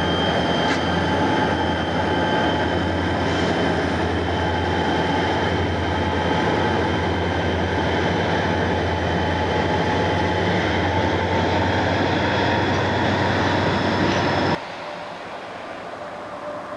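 Canadian National diesel freight locomotives passing at close range: a loud, steady engine rumble with a steady high-pitched whine over it. About three-quarters of the way through, the sound drops off suddenly to a much quieter background.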